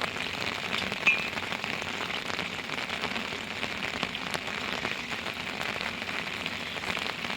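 Steady rain falling, with many separate drops striking nearby surfaces. There is one short, high-pitched sound about a second in.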